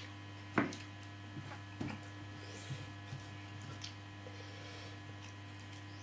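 Eating by hand: fingers scooping sambal from a stone mortar and working rice on a plate, with a few light clicks and knocks, the loudest about half a second in, over a steady electrical hum.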